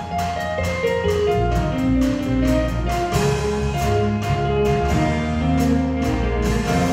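Live band music: quick, many-note playing on a Roland RD-2000 stage keyboard over a bass guitar line, with a steady beat of sharp attacks.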